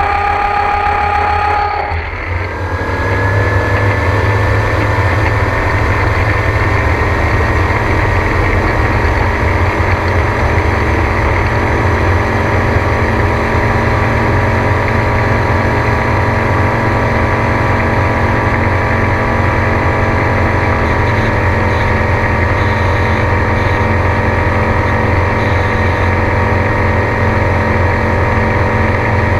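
Gyrocopter engine and propeller running steadily in flight, with a heavy low rumble. About two seconds in the tone shifts and the level dips briefly, then it settles into a steady drone.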